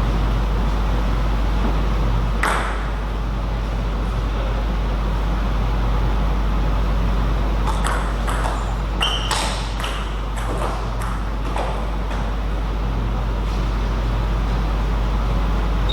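Table tennis ball clicking sharply off rackets and table, once early on and then in a quick rally of about a dozen hits between roughly 8 and 12 seconds in, over a steady hall hum.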